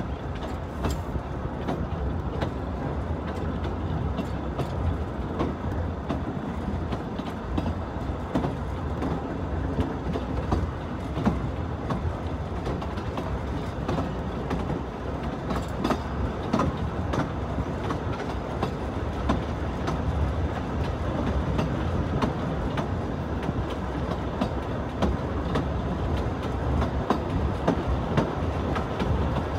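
Narrow-gauge passenger train running along the track: a steady rumble with irregular clicks of the carriage wheels over the rail joints.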